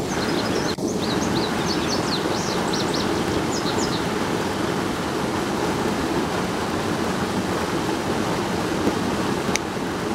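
Steady rush of water pouring through a spillway.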